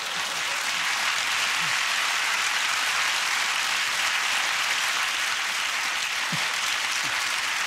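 Studio audience applauding, a dense, steady clapping of many hands.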